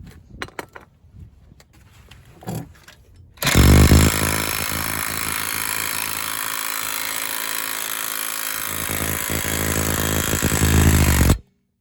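A few light handling clicks, then an impact wrench starts suddenly and hammers a lug nut down for about eight seconds, pulling a new wheel stud through the hub. It gets a little louder near the end and stops abruptly.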